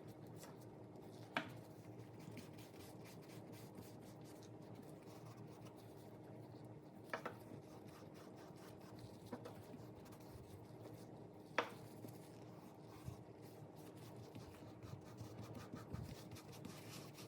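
Faint rubbing and scratching of hands working on a leather wallet, with four sharp clicks spread through it and busier scratching near the end, over a steady low hum.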